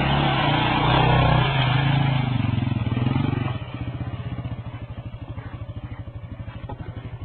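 Motorcycle engine running under throttle, then about three and a half seconds in the throttle closes and it drops to a steady idle with an even, rapid pulse.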